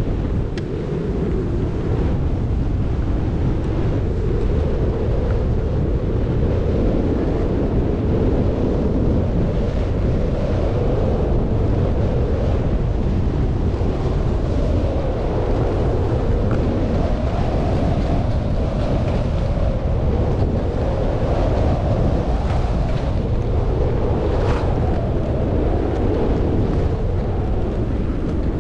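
Wind buffeting the microphone of a camera carried by a downhill skier, over the steady rush and scrape of skis on packed, groomed snow that swells and fades with each turn.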